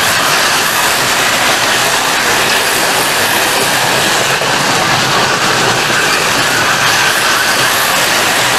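Several 1/43-scale Carrera Go slot cars running laps on the plastic track: a steady, loud whirring of their small electric motors and wheels, with a high whine running through it.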